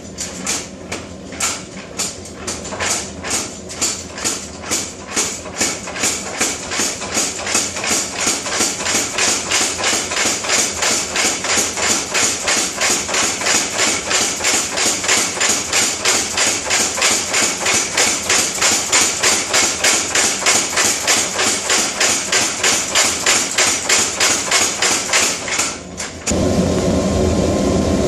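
Mechanical power hammer pounding hot steel in a steady rhythm of about four blows a second, irregular at first and growing louder. About two seconds before the end the blows stop and a steady, louder noise takes over.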